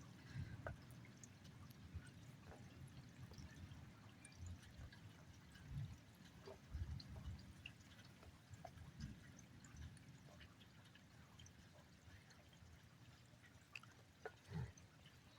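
Faint rain dripping and pattering in scattered ticks, with a few soft low thuds.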